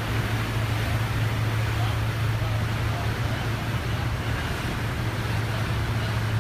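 Car ferry's engines running with a steady low hum, over a constant wash of churning water and wind.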